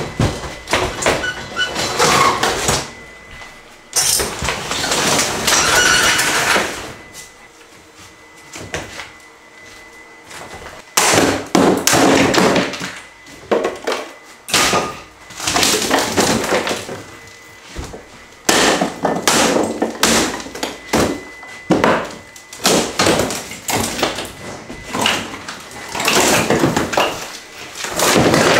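Hand demolition of kitchen cabinets: an irregular string of bangs, thuds and crashes as wood and rotted panels are struck with a hand tool, wrenched loose and dropped, with quieter stretches between.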